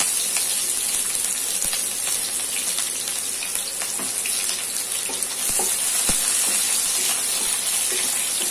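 Sliced shallots sizzling in hot oil in a non-stick pan, a steady hiss with the odd small pop, just after the onions went into the oil.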